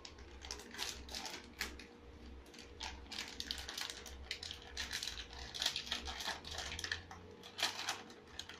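Plastic packet being torn open and crinkled by hand: irregular, rapid crackling and clicking, with a faint steady hum underneath.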